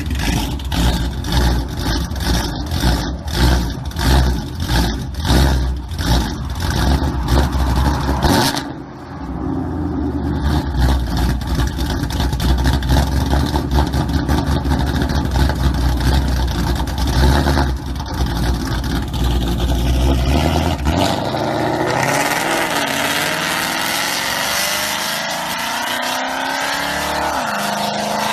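Ford Mustang GT's 5.0 V8 through its active exhaust in loud mode: a run of quick throttle blips for the first eight seconds or so, then a steady deep rumble. About twenty seconds in it starts accelerating, the pitch climbing and dropping back briefly at a gear change near the end.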